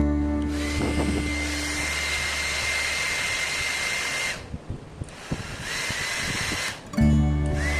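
AGARO HD-1214 hair dryer running, its fan blowing with a steady high whine. It switches off about four seconds in, then comes back on about a second later, the whine rising as the motor spins up. Background music comes back in near the end.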